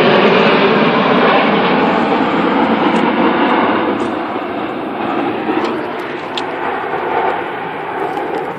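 Loud roar of a passing jet airliner that slowly fades away.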